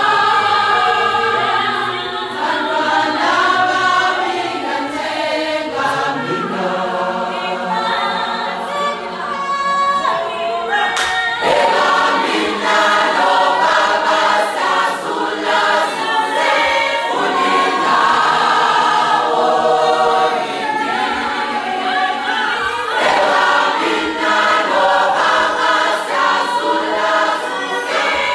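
Large choir of women singing a Zulu hymn a cappella, many voices together.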